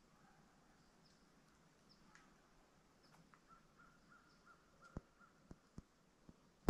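Quiet woods with faint bird calls. Around the middle a bird gives a run of about seven short repeated notes, about three a second. Near the end come a few sharp clicks or taps, the last one the loudest.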